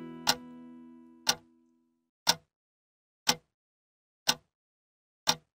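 A song's last acoustic guitar chord rings out and fades over the first two seconds. Through it and after it comes a clock-like ticking, one sharp tick each second.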